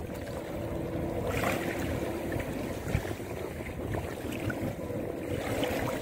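Small sea waves lapping in the shallows: a steady wash of water, with a faint steady hum in the first two seconds or so.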